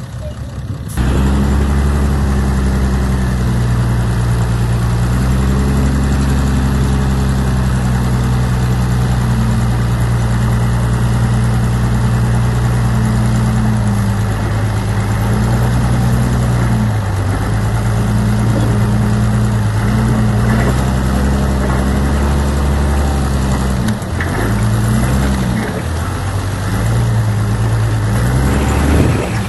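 Heavy diesel engine of earthmoving machinery running steadily under load. It comes in abruptly about a second in, and its pitch drops and rises a few times later on as the revs change.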